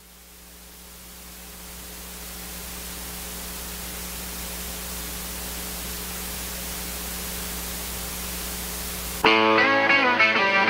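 Steady hiss with a low hum that slowly grows louder, then guitar music that starts suddenly about nine seconds in.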